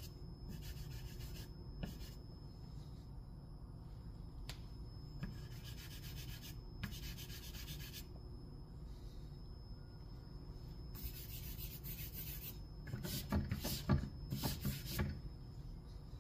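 Willow charcoal stick scraping and rubbing across sketchbook paper in several separate stretches of strokes. Near the end comes a louder, rougher stretch of rubbing with a few soft knocks.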